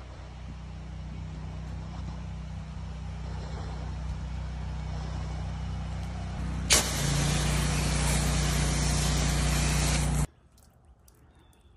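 Pressure washer engine and pump running with a steady low drone. About two-thirds of the way in, the spray wand is triggered and a loud hiss of water spraying onto vinyl siding joins it, and both cut off suddenly near the end.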